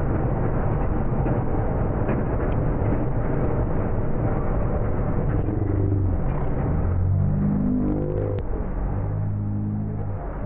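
Freight train of open-top hopper cars rolling past on the rails: a steady heavy rumble with wheel clicks. About seven seconds in, it gives way to a low, drawn-out, wavering pitched sound, the audio slowed down to slow motion.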